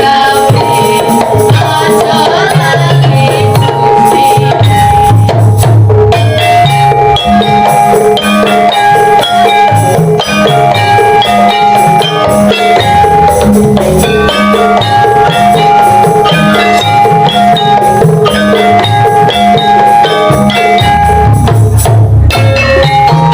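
Javanese gamelan ensemble playing a continuous piece: bronze metallophones ring out steady repeated notes over driving kendang drum strokes in a jaipong style.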